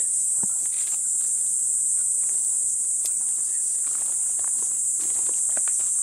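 Cicadas singing in a steady, unbroken high-pitched chorus.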